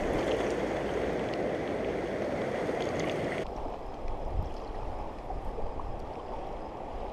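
Rushing river water, a steady wash of fast current. About halfway through it cuts abruptly to a quieter, duller water sound with low rumbles of wind on the microphone.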